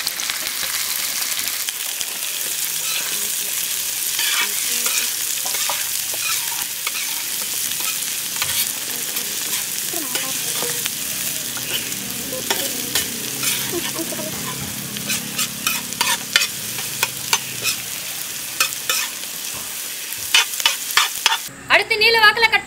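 Chopped onions sizzling in hot oil with ginger and garlic in a large heavy pan, stirred with a steel spatula. In the second half the spatula scrapes and clacks against the pan in quick strokes. Near the end it cuts to a woman speaking.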